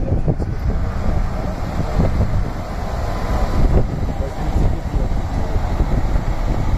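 Wind buffeting the phone's microphone: a loud, steady low rumble.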